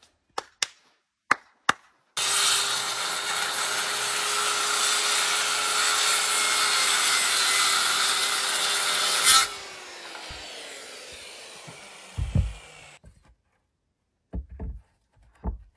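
A few sharp hammer knocks, then a power circular saw running loudly for about seven seconds as it cuts wood, its motor holding one steady pitch. When it is released the blade winds down with a falling whine over a few seconds, and a couple of thumps and knocks follow near the end.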